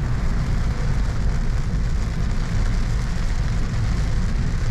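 Steady low rumble of a car driving on a wet road, heard from inside the cabin, with rain hitting the windscreen.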